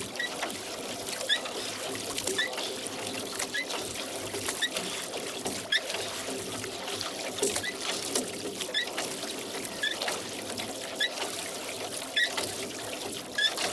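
Rowboat oars working the water, with water trickling and dripping off the blades. Short high squeaks recur about once a second.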